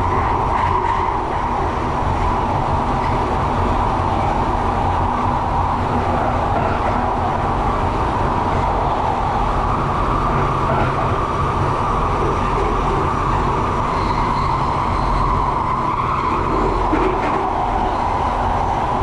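London Underground Victoria Line train running through the tunnel, heard from inside the carriage: a loud, steady roar of wheels on rail with a constant whine running through it.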